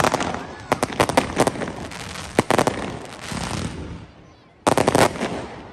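Fireworks going off: rapid strings of sharp bangs and crackling, one sharp report about two and a half seconds in, and after a short lull a dense burst of quick cracks near the end.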